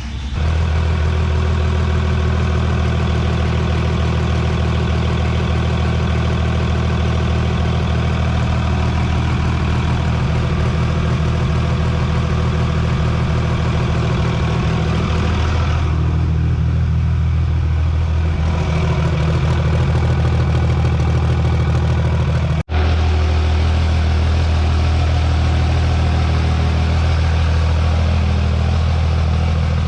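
Cummins inline-six turbo diesel in a drag truck running at a steady idle, with a brief break about two thirds of the way through.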